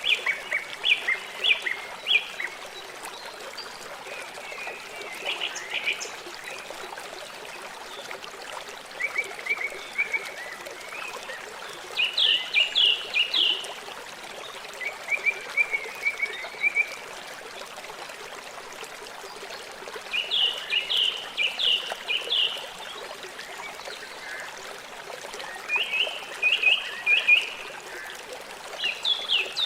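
A river flowing with a steady rushing and trickling. Over it, a bird calls in short runs of quick, high chirps every few seconds.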